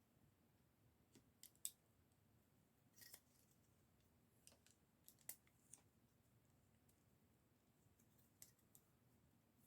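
Faint, scattered clicks and taps of small plastic Lego pieces being handled and snapped together, about a dozen irregular ticks over several seconds.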